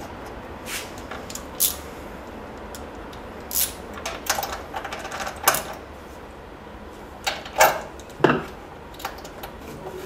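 Irregular metal clinks and clicks of a hand tool and small parts against a small two-stroke portable generator's engine as its spark plug is refitted.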